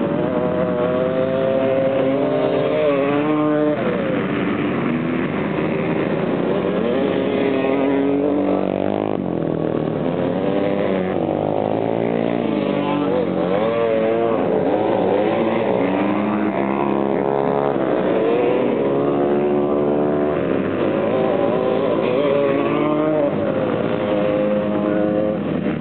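Several dirt-track racing motorcycles revving hard as they ride around the oval. Engine notes overlap and keep rising and falling as riders open and close the throttle through the turn.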